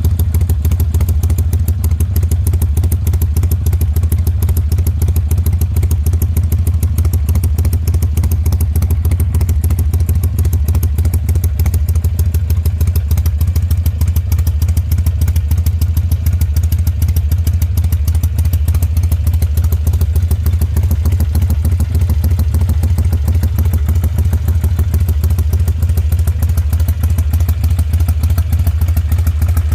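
Harley-Davidson V-twin engine idling steadily with a loping, uneven beat likened to galloping horse hooves. The engine is tuned with an FP3 fuel-pack tuner.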